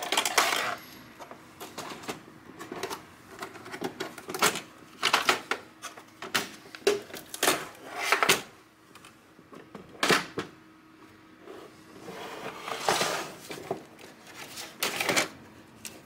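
Plastic snap-fit clips of a Lenovo IdeaCentre AIO 3 all-in-one PC's rear housing clicking and snapping as the cover is pried apart with a plastic pry tool and handled. The clicks come irregularly, with short rustling in between.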